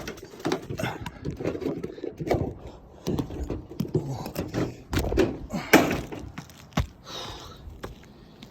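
Irregular knocks, thumps and scraping from hands-on work, with a rougher scraping hiss about seven seconds in.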